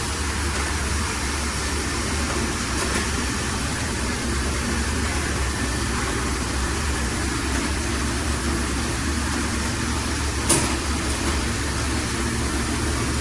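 Xiaomi robot vacuum-mop running: a steady whirr of noise over a low hum, with one short knock about ten and a half seconds in.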